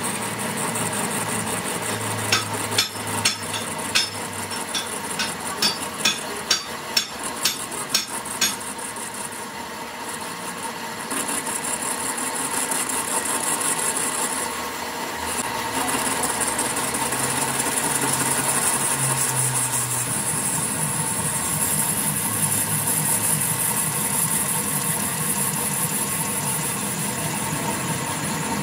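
Metal lathe running while the tool in its toolpost cuts the face of a spinning steel hydraulic-cylinder coupling plate: a steady cutting hiss with a faint thin whine. A run of about a dozen sharp clicks comes between about two and eight seconds in.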